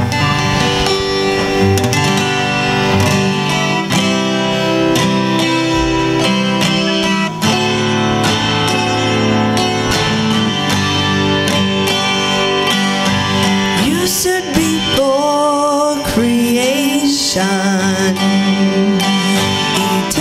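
Acoustic guitar strumming a worship song's introduction, with other instruments underneath; a voice starts singing about fourteen seconds in.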